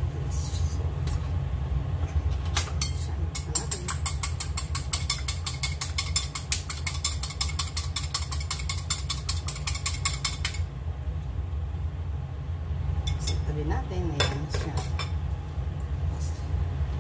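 Eggs being beaten with a utensil in a porcelain bowl: a rapid, even tapping against the bowl that starts a few seconds in and lasts about seven seconds, with a few more taps later. A steady low hum runs underneath.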